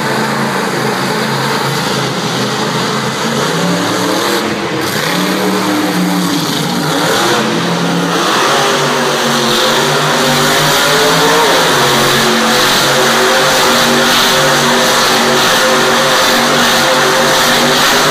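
Monster truck's supercharged V8 revving hard, its pitch rising and falling in the first half, then held high and steady from about eight seconds in.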